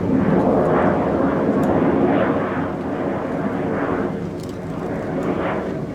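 Aircraft engine noise from a display plane flying past, steady and loud, easing off a little after about two and a half seconds.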